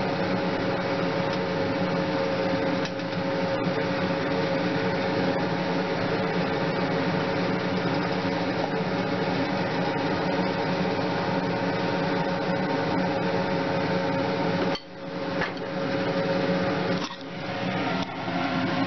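Kitchen exhaust fan running with a steady hum and rush of air, turned on because the frying pan was smoking. The sound briefly drops out twice near the end.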